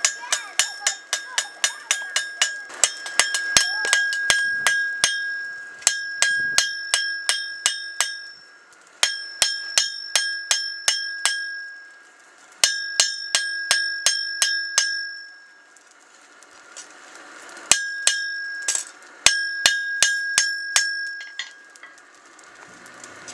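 Blacksmith's hammer striking a hot knife blade on a steel anvil, each blow ringing with a clear metallic tone. The blows come in quick runs of about four a second, broken by three short pauses.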